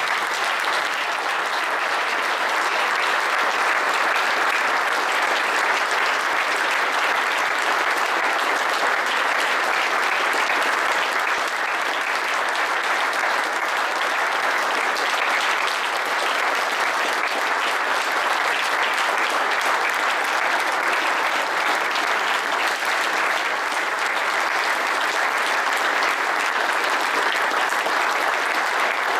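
Audience applauding, a steady, sustained round of clapping that keeps up without a break.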